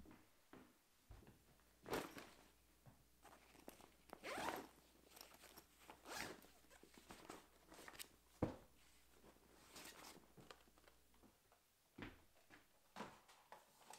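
JanSport backpack zipper pulled in several short, rasping runs, with a sharp knock about halfway through.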